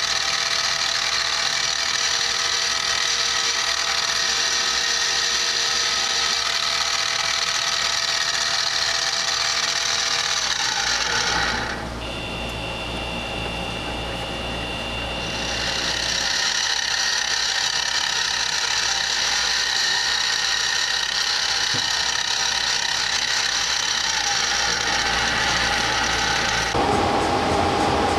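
Drill press running steadily while drilling pin holes through a knife handle scale, with a steady whine. The sound drops and changes for a few seconds around the middle, then comes back.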